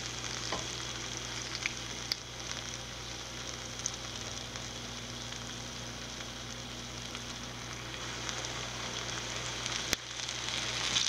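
Breaded fish pieces frying in shallow oil in a skillet: a steady sizzle with a couple of brief pops.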